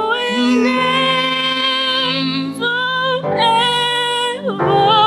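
Worship song being sung in long, held notes, in two drawn-out phrases.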